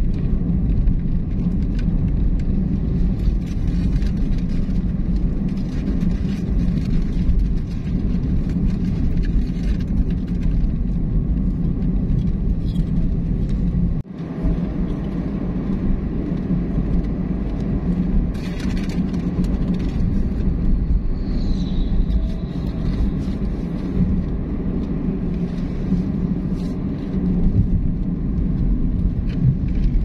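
Steady low rumble of a vehicle on the move: engine and road noise, with a momentary dropout about fourteen seconds in.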